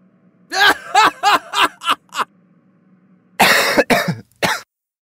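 A man laughing: a quick run of about six pitched 'ha' bursts, then after a pause a louder, breathy burst of laughter near the end.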